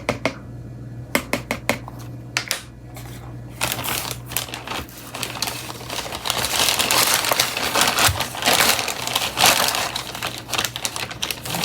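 Kitchen handling noise while baking: a few light clicks and knocks, then from about three and a half seconds in a long stretch of continuous crinkling and rustling.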